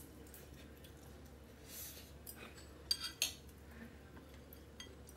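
A fork and knife cutting into an omelette on a glass plate: soft scraping, then two sharp clinks of metal cutlery against the glass about three seconds in.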